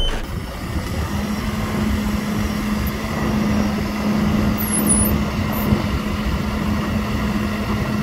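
JCB 3CX Pro backhoe loader's diesel engine and hydraulic system working as the rear stabilizer legs push down and self-level the machine. A steady hum comes in about a second in and holds under the engine noise.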